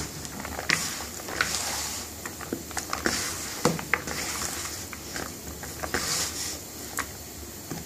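A hand mixing sliced onions with beaten egg, spices and gram flour in a large bowl for onion bhaji batter: irregular squelching and rustling, with sharp clicks every second or so.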